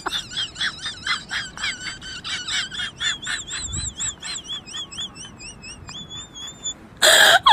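Rapid high-pitched chirping, about five chirps a second. Partway through, a wavering whistle-like trill joins in. It ends in a loud, harsh burst of noise near the end.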